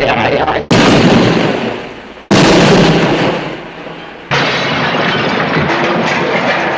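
Cartoon explosion sound effects played one after another: a short noisy burst, then three loud blasts, each starting suddenly; the first two fade away over a second or so and the third carries on as a long rumble.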